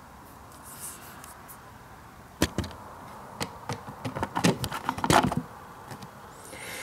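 A quick, irregular run of small clicks and knocks starting a couple of seconds in: handling noise from the lifted lid and metal case of a LiFePO4 battery pack.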